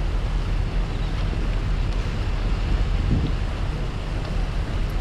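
Steady rushing and babbling of a flowing river, heavy in the low end.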